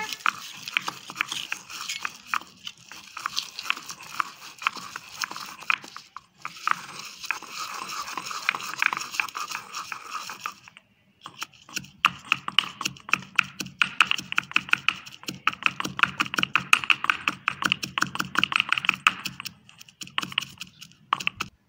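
Pestle pounding dried red chillies and salt in a small stone mortar: quick, repeated knocks, several a second, with a short pause about 11 seconds in.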